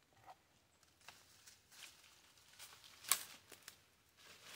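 Footsteps through dry leaf litter and brush, with scattered crackles of twigs and leaves and one sharper crack about three seconds in.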